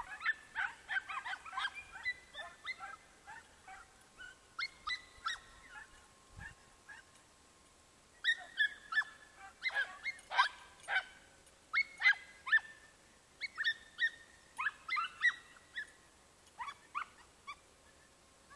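A pack of hunting dogs, podencos, yelping and barking in quick, high, overlapping cries as they hunt, in bursts with a short lull partway through.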